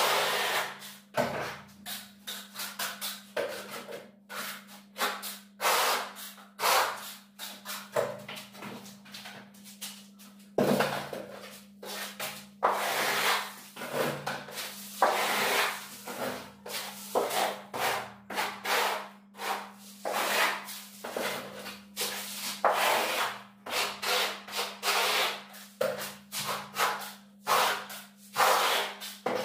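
Plasterer's float scraping and rubbing bark-beetle (koroed) decorative plaster across a wall in short, irregular strokes, several a second, over a steady low hum.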